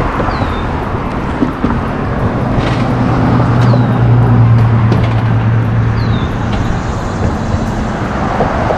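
Road traffic noise with one vehicle passing: its low engine hum swells over a few seconds and fades. A bird gives a short falling whistle about every three seconds.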